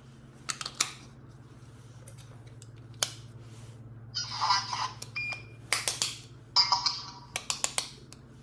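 Clicks, two short hissing bursts and a brief beep from a remote-controlled toy robot and its handset, over a steady low electrical hum.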